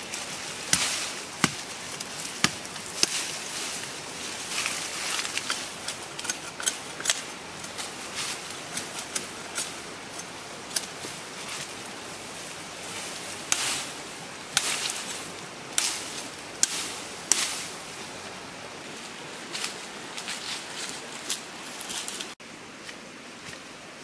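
Dry grass, brush and twigs rustling and snapping as they are pulled and broken by hand, a run of irregular sharp cracks. The cracks stop about 22 seconds in, leaving only a quieter steady background.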